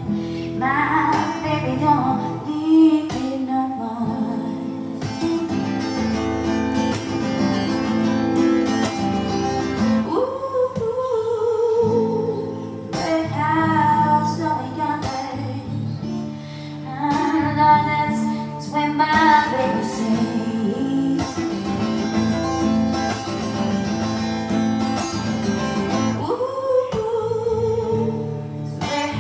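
A singer performing live with acoustic guitar accompaniment. A few sung notes are held with vibrato.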